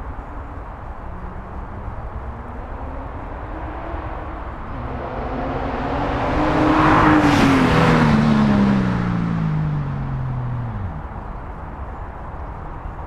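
A car drives past with its exhaust note growing louder to a peak about halfway through, then dropping in pitch and fading as it moves away.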